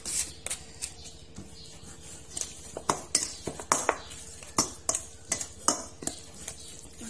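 Metal spoon stirring and turning minced raw buffalo meat in a stainless steel bowl: irregular clinks and scrapes of the spoon against the steel.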